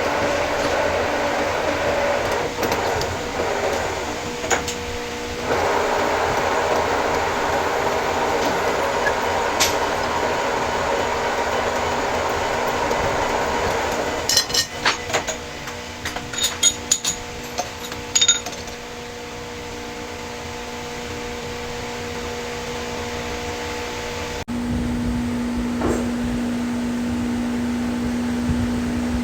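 Lathe running with a steady machine hum. About halfway through comes a cluster of sharp metallic clinks and knocks, and near the end the hum changes abruptly to a lower, steadier tone.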